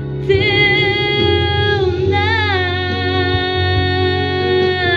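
A woman singing a long held note into a microphone over backing music with guitar, the note swooping in pitch about two seconds in and then held again.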